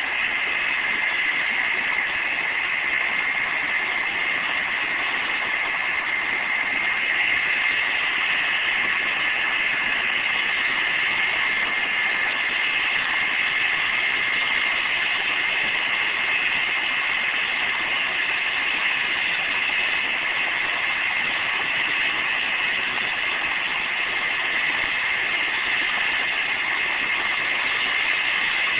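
Medical helicopter running on the ground with its rotor turning before lift-off: a steady high turbine whine over a rushing rotor noise.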